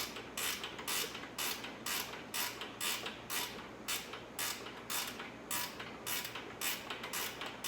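Ratchet wrench backing out a bolt, clicking in even strokes about twice a second.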